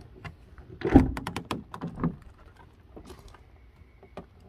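Ram ProMaster van's passenger door unlatching and swinging open: a clunk about a second in, then a quick run of rattling clicks and a few softer knocks.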